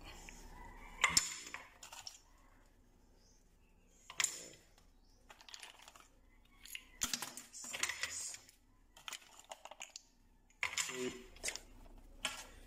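A few short, light clinks and knocks of hard objects, spaced a few seconds apart, with near quiet between.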